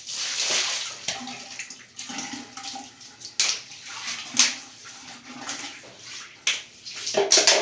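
Water spraying and splashing in a shower enclosure in uneven bursts, loudest right at the start, with several shorter surges later.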